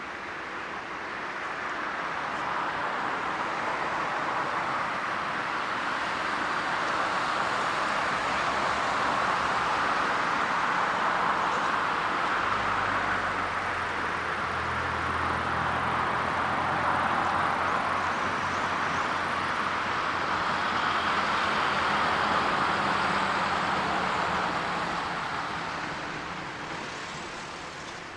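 Jet airliner passing: a broad engine noise that builds, holds for some twenty seconds with a low hum underneath, and fades away near the end.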